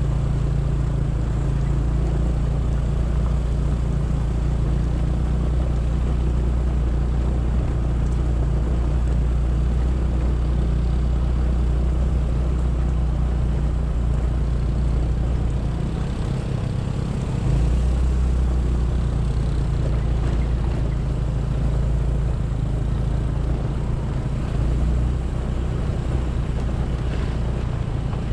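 Motorcycle engine running steadily while riding, with wind and road rumble; the engine note changes briefly about sixteen seconds in, then settles again.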